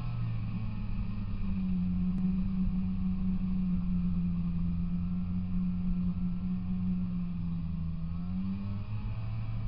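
Polaris Indy 340 snowmobile's two-stroke engine running under way. Its pitch rises about a second and a half in, holds steady, then drops back near the end.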